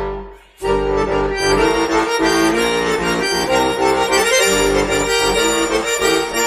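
Chromatic button accordion (bayan) playing a tune of held chords over bass notes. It comes in about half a second in, after a brief dip.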